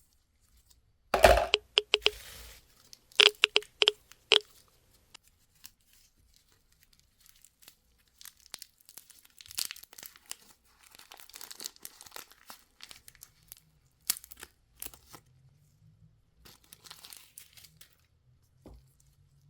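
Plastic candy wrapper being torn open and crinkled. There is a sharp rip with a quick run of crackles about a second in, another run of snaps at about three to four seconds, then softer scattered crinkling.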